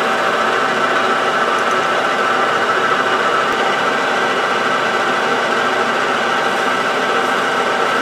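Hobby metal lathe running at steady speed with a steady whine from its drive, while a carbide insert tool cuts to relieve the corner of the spinning workpiece.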